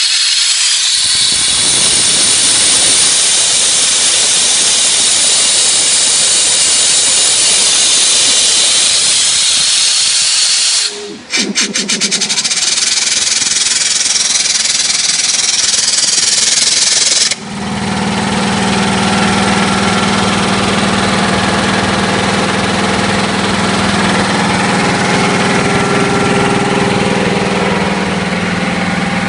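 Three-cylinder air compressor with a 10 hp motor starting with its head pressure relief solenoid open. Compressed air hisses loudly as it vents, broken by a burst of rapid clicking about eleven seconds in. About seventeen seconds in the hiss cuts off abruptly as the relief valve closes, and the compressor runs on with a steady hum, pumping into the tank.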